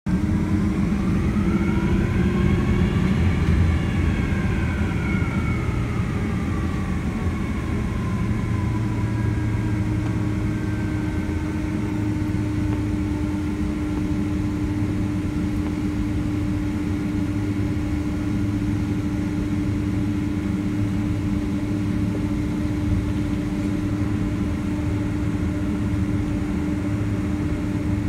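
Boeing 767-300ER jet engines heard from inside the cabin while taxiing: a steady low drone with a steady hum. Over it, a whine rises for the first few seconds and then falls away over the next several.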